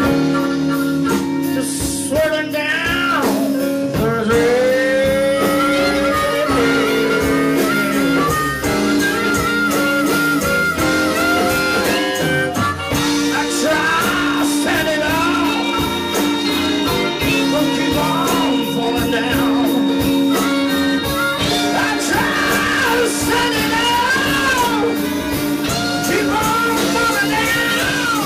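Live blues band playing, with electric guitar, keyboard and horns. A lead line bends up and down in pitch over a steady held chord.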